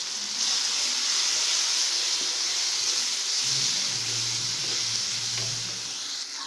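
Onion-tomato masala sizzling in hot oil in a nonstick pan while a spatula stirs it, a steady frying hiss. The hiss grows louder about half a second in and eases near the end.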